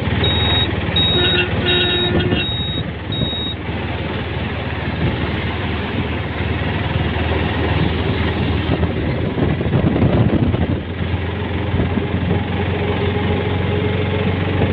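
Auto-rickshaw's engine running with road and wind noise while moving, heard from inside the cab. In the first few seconds a string of short high beeps repeats about every two-thirds of a second, and the noise swells briefly about two-thirds of the way through.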